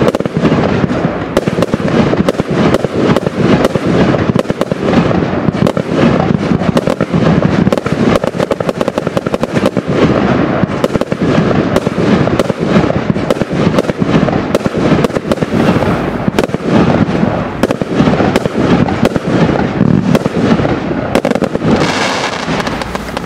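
Absolute Fireworks Kraken 109-shot barrage cake firing in rapid succession: a continuous stream of launch thumps and aerial bursts, several a second. Near the end a final volley of crackling stars comes before it dies away.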